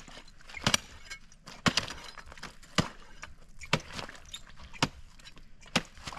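Ice being broken up by hand with repeated sharp blows, about one strike a second, six in all.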